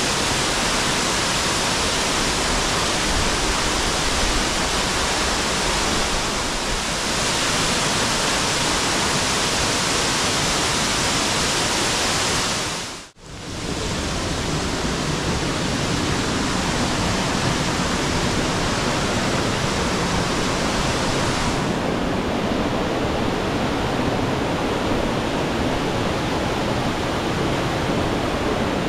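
Waterfall on the Borovniščica stream pouring heavily, swollen by high water: a loud, steady rush of falling water. The sound drops out for a moment about halfway through and turns slightly duller in the highs later on.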